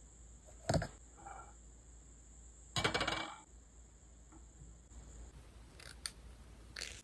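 A sharp click, then a short clatter of small hard objects handled on a wooden tabletop, followed by a few brief, faint scrapes of a nail file on a fingernail.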